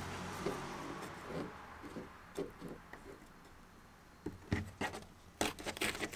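Sandpaper being pressed and folded around a thin wooden stick to make a makeshift sanding block: rubbing and paper crackle, with scattered soft taps and a cluster of sharper crackles and clicks near the end.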